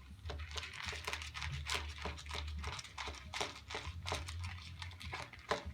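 A dog eating dry food from a bowl: a quick, irregular run of crunches and clicks as she chews, over a steady low hum.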